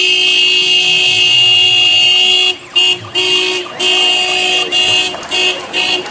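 A horn blaring one steady note for about two and a half seconds, then sounding in a run of short toots.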